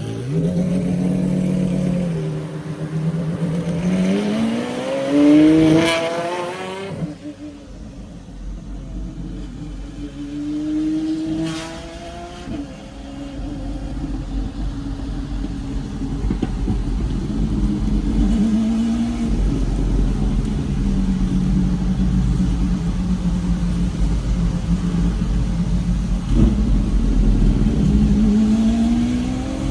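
Pagani Zonda R's V12 engine pulling through the revs in several rising pulls. The loudest climbs to a sharp cut-off about seven seconds in, and another rise comes near the end, with steadier running between.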